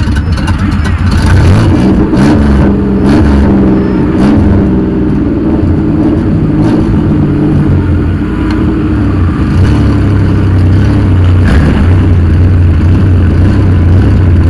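Demolition derby van's engine running loudly while the van stands still, heard from inside the cab, with a few revs that rise and fall about two to four seconds in.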